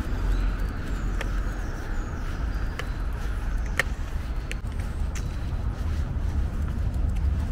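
Steady low rumble of road traffic, with a handful of sharp clicks scattered through it.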